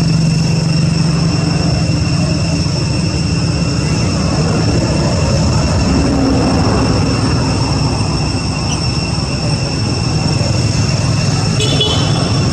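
Steady low rumble and noise, like a vehicle running, with a few thin steady high whining tones over it. A short rattling clatter comes near the end.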